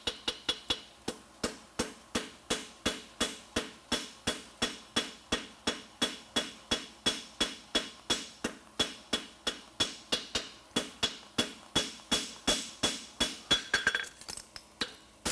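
Farrier's hand hammer striking a steel horseshoe on an anvil in a steady run of blows, about three a second, each with a bright metallic ring. The blows are forging and shaping the edge of the shoe. They break off briefly near the end, then resume.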